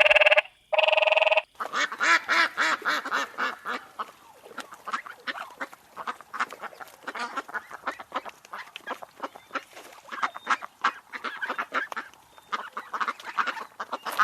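A flock of waterfowl calling, many birds at once in a dense stream of rapid, overlapping calls. It is preceded by two short, loud calls that hold one pitch, in the first second and a half.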